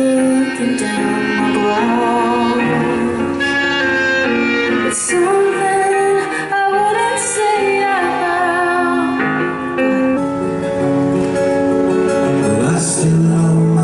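Music with a female singing voice over guitar.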